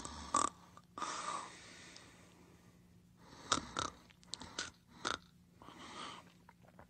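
Sleep and snoring sound effect: hissing breaths, with a run of short sharp clicks in the middle.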